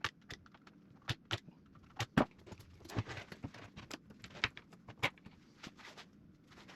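Irregular metallic clicks, clanks and light rattles of a saw chain and guide bar being handled and fitted onto a battery top-handle chainsaw, with one sharper knock about two seconds in.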